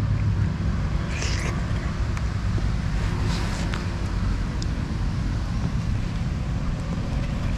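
Steady low rumble of outdoor background noise, like distant traffic or wind on the microphone. There is a brief rustle about a second in and a few light handling clicks as the camera and bags are moved.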